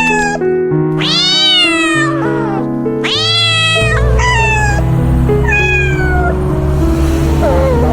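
A cat meowing about five times, some calls long and drawn out with a falling pitch, over background music; a low bass beat comes into the music about four seconds in.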